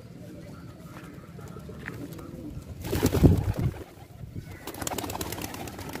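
Fantail pigeons cooing, a low pulsing murmur, with a loud rushing burst about three seconds in.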